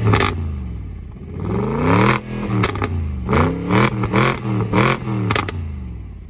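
2009 BMW 650i's 4.8-litre V8 revved through an exhaust with the center resonators removed and the stock rear mufflers kept. One rev falls away at the start, a slower rising rev peaks about two seconds in, then comes a quick string of throttle blips, each rising and dropping back, before the engine settles lower near the end.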